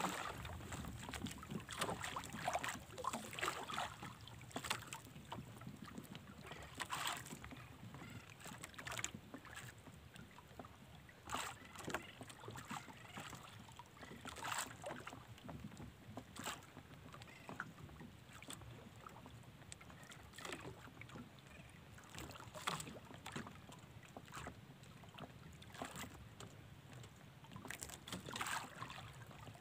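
Water lapping against the hull of a small drifting outrigger canoe, with short irregular splashes and light knocks every couple of seconds over faint wind.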